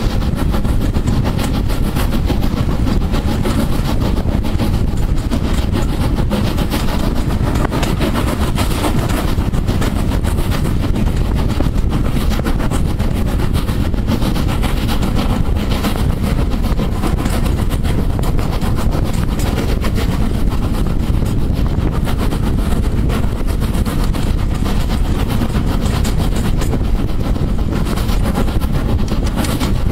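Steam locomotive no. 506, an ex-LSWR Urie S15 class 4-6-0, working hard at the head of the train: a loud, steady thrash of exhaust and running noise heard from an open carriage window.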